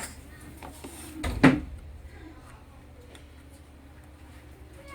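A single knock or thump about a second and a half in, then quiet room noise.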